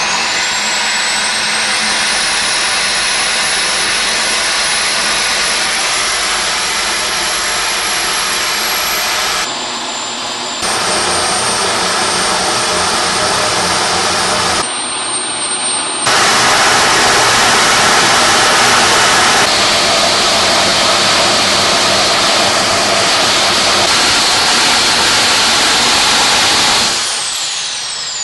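Homemade jet engine running at high speed: a loud roar of rushing exhaust under a piercing turbine whine. The whine climbs in pitch over the first couple of seconds as the engine spools up, and the sound changes abruptly a few times. Near the end the whine falls away steeply as the engine winds down.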